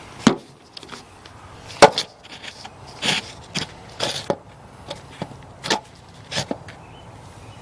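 A series of sharp, irregular knocks and clunks of hard objects being set down or struck, about eight over several seconds, the loudest near the start.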